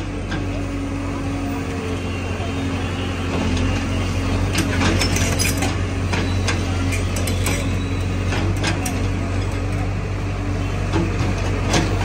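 Excavator's diesel engine running steadily, with scattered short clicks and knocks from about four seconds in.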